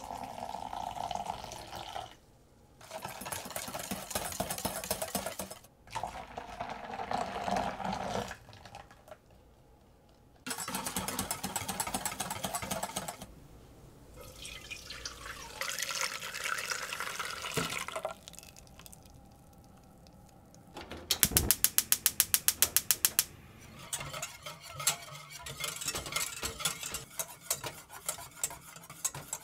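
Warm milk poured into a mixing bowl, then stretches of stirring and pouring as custard batter goes through a strainer into an enamel saucepan. About two-thirds of the way in comes a loud, rapid run of even clicks, like a gas stove's igniter sparking, lasting about two seconds. Near the end a wire whisk beats the custard in the enamel pan with irregular ticks.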